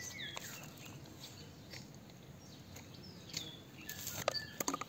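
Birds chirping, a few short gliding calls against a faint outdoor background, with a few light clicks about four seconds in.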